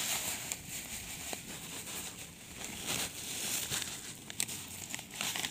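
Perlite granules poured from a plastic bag onto potting soil: a steady light hiss of falling grains with scattered small clicks.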